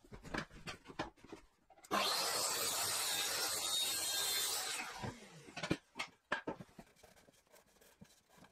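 Plunge track saw cutting a taper into the end of a 2x4 construction-timber leg: the saw noise starts abruptly about two seconds in, runs steadily for nearly three seconds and dies away. Knocks and clicks from handling the saw and rail come before and after the cut.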